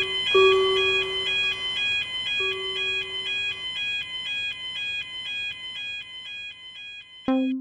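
Electronic level-crossing warning alarm from a crossing animation: a high tone switching between two pitches about twice a second, over a lower steady tone that stops and restarts a few times. It cuts off abruptly near the end with a click and a short low tone.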